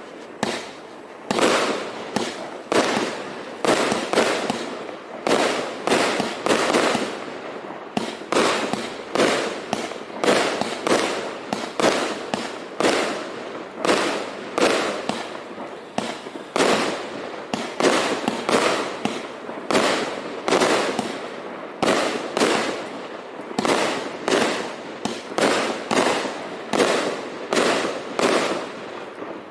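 A consumer fireworks cake, a 269-shot compound of 25 mm and 30 mm tubes, firing a steady run of sharp shots, about one and a half to two a second, each trailing off briefly before the next.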